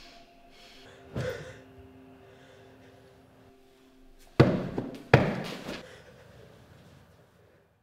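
Soft held music notes, with a softer thud about a second in. The notes stop about four seconds in, and two heavy thuds follow about three quarters of a second apart, each ringing out briefly; the thuds are the loudest sound.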